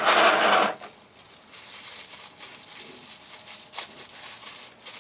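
Rustling and handling of parts, a bag and metal mounting brackets, stopping under a second in; then quiet handling with a single light click near four seconds.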